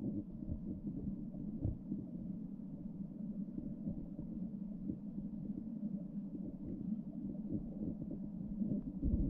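Muffled underwater sound of a river picked up by a submerged camera: a steady, low rush of flowing water with no sharp sounds.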